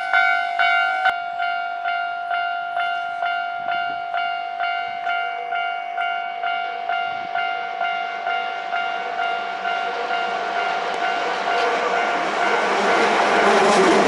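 A railway level-crossing warning bell rings steadily, about three strikes every two seconds. A Hankyu 5100-series electric train approaches. Its running noise swells over the last few seconds and drowns the bell as the train passes close by.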